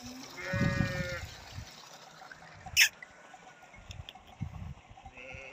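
Running water from a stream, with a short high wavering call about half a second in and a single sharp click just before three seconds.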